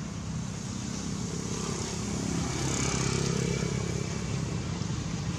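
Low, steady rumble of a motor vehicle going by, slowly growing louder towards the middle and then easing a little.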